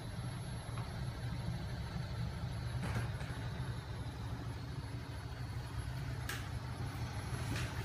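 Homemade magnet-crankshaft flywheel machine running on its small 12 V electric motor, giving a steady low hum. A few short, sharp noises come near the middle and end.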